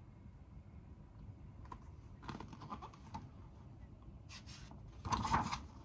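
Soft rustling and light tapping of a picture book's paper pages being handled and turned, with a louder rustle about five seconds in.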